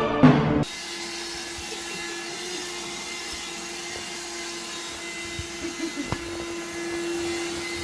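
A motor humming steadily with one held tone, and a few light knocks about five to six seconds in; music stops just under a second in.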